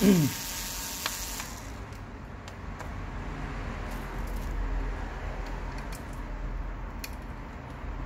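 Cordless electric screwdriver running for about a second and a half, backing out a laptop motherboard screw. After it stops there are a few faint clicks of handling over a steady low hum.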